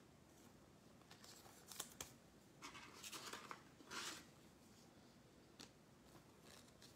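Faint handling of trading cards and foil pack wrappers: a few short, soft scrapes and rustles, with near silence between them.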